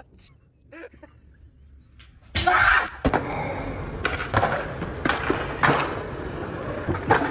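Skateboard wheels rolling on rough asphalt: a steady rumble with several sharp clacks from the board. Just before the rolling starts, about two seconds in, a short loud burst of noise.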